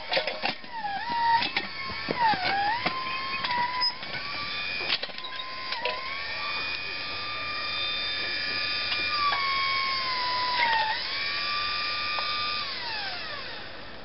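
Electric motor of a homemade battery-powered backhoe whining as it works the digging arm, its pitch dipping and recovering several times, then sliding down near the end. In the first few seconds it is joined by scraping clicks and knocks of the bucket digging into dirt.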